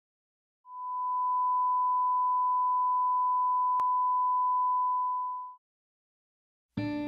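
A steady pure test tone, the reference tone of a colour-bars-and-tone leader, held for about five seconds with a single sharp click partway through. Guitar music begins just before the end.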